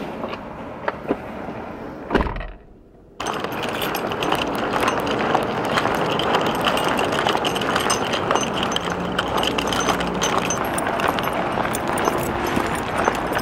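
Steady road and wind noise inside a moving car whose back window is broken, loud for a car cabin, with small rattles and clicks. About two seconds in there is a thump, the sound drops away for about a second, then returns as a louder steady noise with many small clicks.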